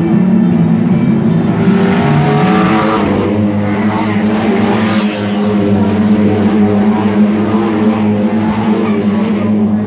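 A pack of Lightning Rod saloon stock cars racing past on an oval track, engines at full throttle, the noise swelling from about two seconds in as the pack goes by.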